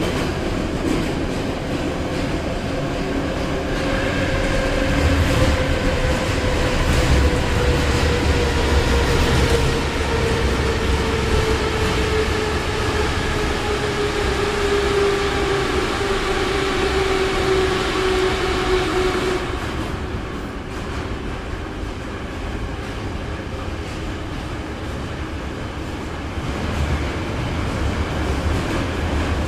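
Inside a moving Moscow metro car of the 81-717/714 'nomernoy' type: steady rumble of wheels on rail, with a whine that slowly falls in pitch over about fifteen seconds. A little after the middle, the noise eases off somewhat.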